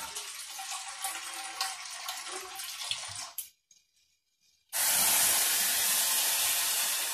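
Plain water poured from a steel bowl into a pressure cooker holding the cooked masoor dal and vegetables, a steady pour that starts after a brief silence and tails off near the end. Before it, a quieter steady rushing of running water.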